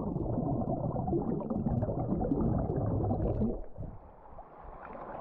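Water churning and bubbling around a diving swimmer, heard muffled through a submerged GoPro camera; it quietens about three and a half seconds in.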